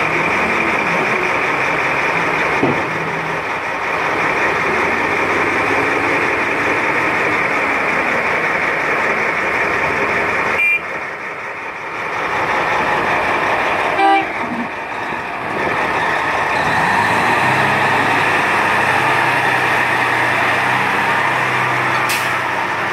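Heavy diesel engines of a Cat 988F wheel loader and a Cat 775E haul truck running loud and steady, with a constant high whine over the engine sound. The sound dips briefly around eleven seconds in, and there is a sharp knock at about fourteen seconds.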